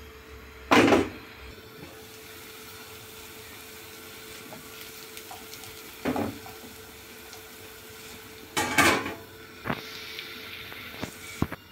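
A frying pan of grated zucchini batter on a gas burner with a steady low sizzle. There is a loud metal clatter about a second in, a shorter knock around the middle, and a stainless-steel lid clattering onto the pan near the end, followed by a few light knocks.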